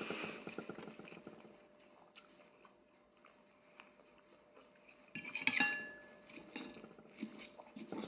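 Close-up chewing at first, then a fork scraping and clinking on a plate, with one loud clink that rings briefly about five seconds in and a few lighter taps near the end.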